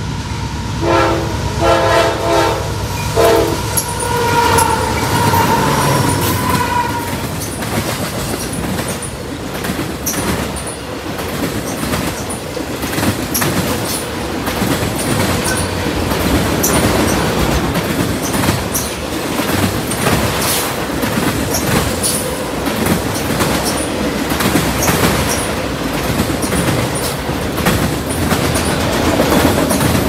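Lead CSX CW44AH diesel locomotive sounds its horn in a few short blasts near the start as the freight train approaches. Then a long string of autorack cars rolls past close by, wheels clacking steadily over the rail joints with faint flange squeal.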